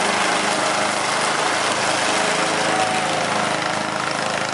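Riding lawn mower's engine running steadily as the mower drives across the grass.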